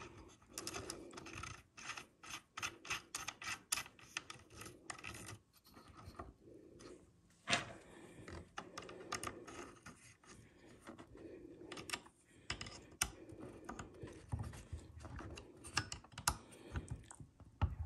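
Fingers threading a small screw and seating an aluminium flip-up sight on a shotgun's top rail: scattered small clicks, taps and scratches of metal parts, with one sharper click about seven and a half seconds in.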